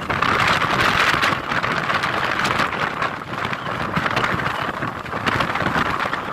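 Strong storm wind from a tornado sweeping a beach, buffeting the microphone as a loud, dense rushing hiss that comes up suddenly at the start and holds.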